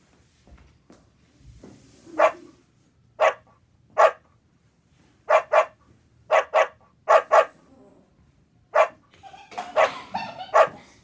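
A dog barking: about ten short, sharp barks, singly and in quick pairs, then a busier run of sound near the end.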